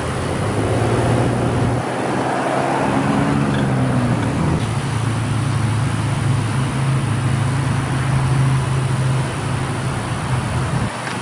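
Vehicle engine idling steadily under a wash of road traffic noise.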